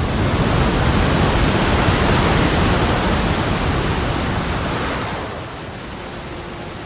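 Ocean wave breaking: a loud, even rush of surf that eases off about five seconds in.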